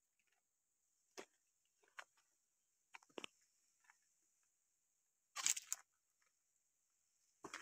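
Mostly quiet, with a faint steady high hiss and a few scattered soft crunches and knocks, the loudest a short cluster about five and a half seconds in.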